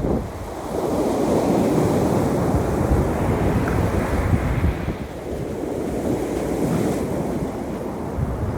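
Ocean surf washing ashore, a steady rushing noise that swells and eases, with wind buffeting the microphone.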